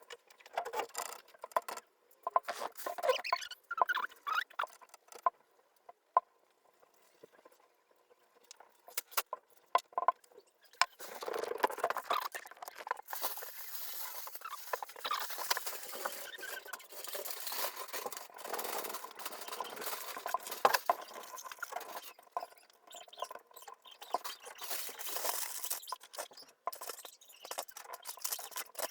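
Irregular light scratching, rustling and small clicks, sparse at first; from about eleven seconds in, a denser stretch of steady scratchy rubbing that thins out near the end.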